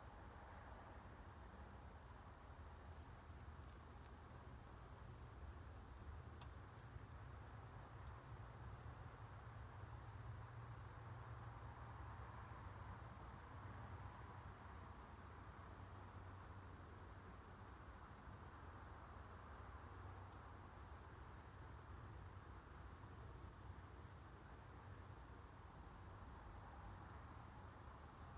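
Faint evening insect chorus: a steady high-pitched trill that drops out about three-quarters of the way through, over a faint, evenly pulsing higher chirping and a low steady rumble.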